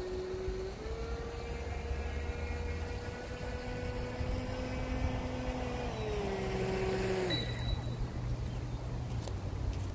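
Radio-controlled speed boat's motor whining steadily. Its pitch steps up about a second in, holds, steps back down near six seconds, then drops away and stops at about seven seconds.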